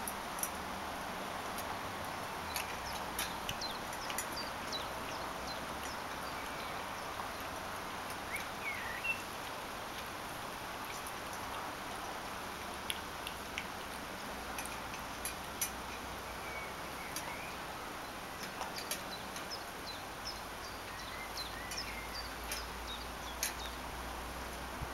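Scattered small clicks and clinks from a puppy eating out of a metal food bowl, over a steady outdoor hiss with a few faint bird chirps.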